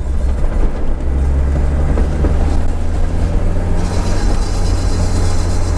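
Nissan 200SX S13's CA18DET turbocharged four-cylinder engine running steadily, heard from inside the car's cabin, with a deep hum and a slight shift in engine pitch a couple of times.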